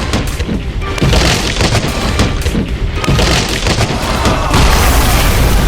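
Added action sound effects: several heavy booming hits over loud background music, with a noisy swell in the last second and a half.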